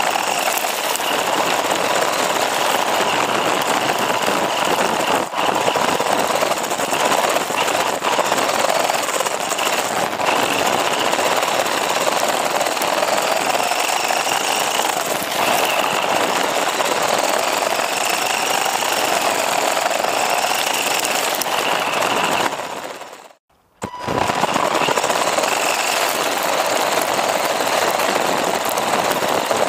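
Onboard sound of a WLToys 144001 RC buggy driving on loose dirt: a loud, continuous rattling din from the chassis and tyres on the gravel, with the electric motor's whine rising and falling with the throttle. The sound cuts out briefly about three quarters of the way through.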